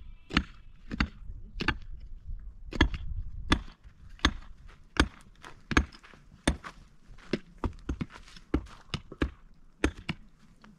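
Hand digging tools striking hard, stony ground: a run of sharp, irregular blows, about one to two a second, as more than one person digs.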